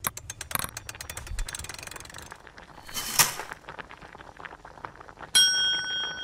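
Mechanical sound effects: a fast run of small clicks and rattles that thins out, a brief swish, then a single bright bell ding that rings on and is cut off sharply.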